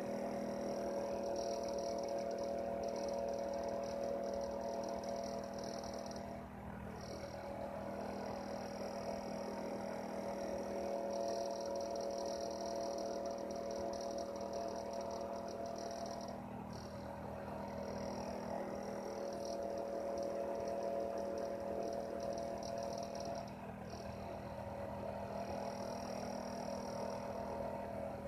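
Heater running with a steady hum made of several held tones, plus a high hiss that cuts out briefly three times, about a third of the way in, past halfway, and near the end.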